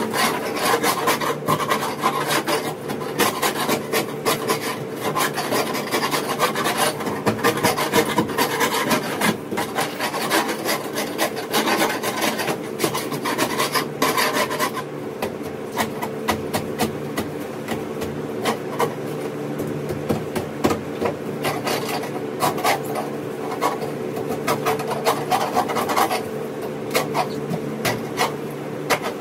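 Scraper on a long handle scraping old foam off a fiberglass boat bottom in quick, repeated strokes, with a steady low hum underneath.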